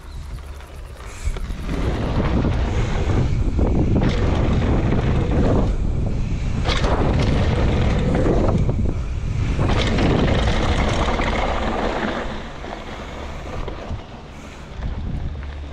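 Wind rushing over the microphone of a camera carried on a mountain bike riding downhill. It swells about a second and a half in, stays loud with surges, and eases off after about twelve seconds.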